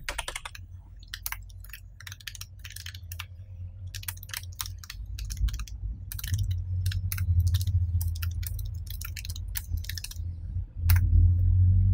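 Computer keyboard being typed on: a quick, uneven run of key clicks as text is entered, over a low steady hum.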